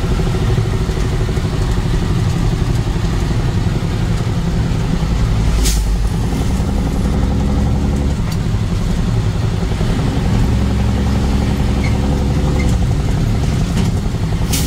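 Motor vehicle driving on the road: a steady low engine drone with road noise, broken by two brief sharp noises, one about six seconds in and one near the end.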